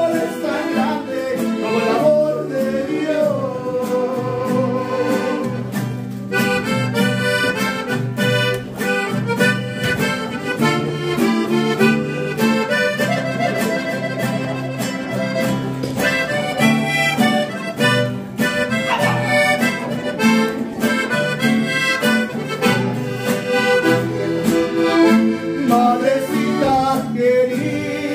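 Accordion-led instrumental break in a Mexican regional song: the accordion plays quick runs of notes over a steady bass line, between sung verses.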